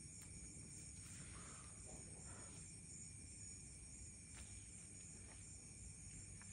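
Faint, steady chirring of night crickets, over a low background hum, with a couple of faint clicks.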